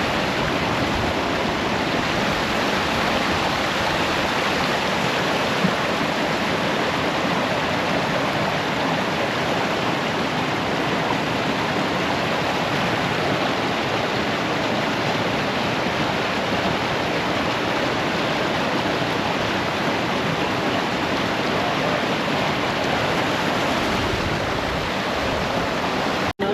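Steady rush of running water, even and unbroken, which cuts off suddenly at the end.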